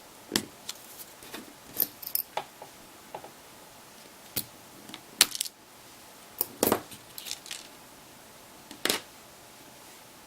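Plastic clips of a smartphone's rear housing clicking and snapping loose as it is pried off the front housing with a flathead screwdriver. Irregular sharp clicks and snaps, the loudest about five and seven seconds in.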